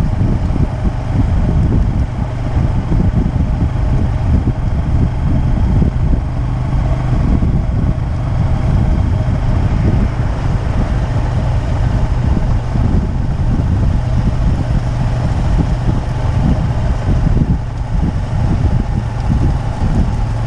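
Wind buffeting the microphone, a gusty low rumble, over a steady low engine hum.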